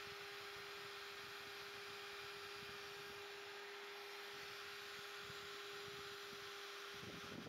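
Faint steady hum, one even tone with a hiss over it; no drilling is heard.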